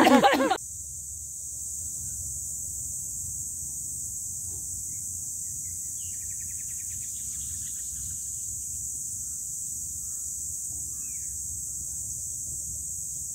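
Steady high-pitched drone of insects, with a few faint bird chirps in the middle, over a low steady rumble.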